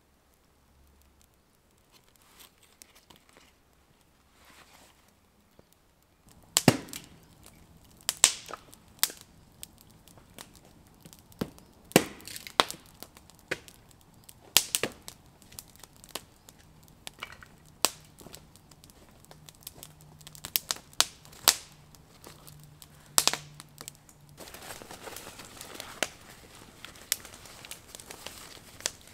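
Split-wood campfire crackling, faint at first as the feather-stick flame catches, then with loud sharp pops and snaps at irregular intervals. Near the end a nylon stuff sack rustles.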